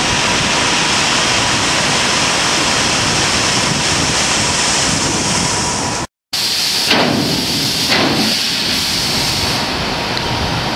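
Dry aggregate pouring out through the open longitudinal bottom doors of a stub-sill hopper car: a loud, steady rush. It breaks off briefly about six seconds in, then two knocks about a second apart over continuing rushing.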